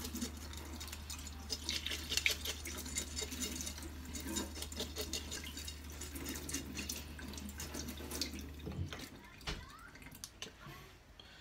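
Kitchen tap running into a stainless steel sink while a fish scaler scrapes the scales off a Japanese stingfish (mebaru) in quick, repeated strokes. The water stops about nine seconds in, leaving a few scrapes and knocks.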